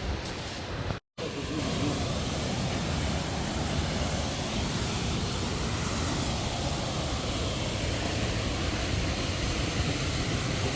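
Kagongo waterfall on the Chania River: a steady rush of falling water. It cuts out for a moment about a second in, then runs on evenly.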